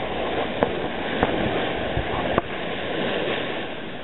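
Steady wash of surf on a beach, with three short sharp clicks or knocks in the first two and a half seconds.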